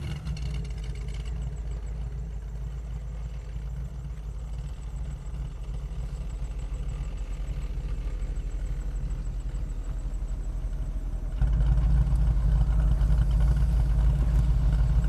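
Car engine running with a steady low rumble that builds slowly, then becomes much louder about three-quarters of the way through, heard from inside the car's cabin.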